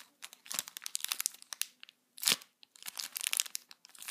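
Clear plastic packaging bag crinkling as it is handled, in irregular bursts of crackles, with a louder crackle a little past halfway.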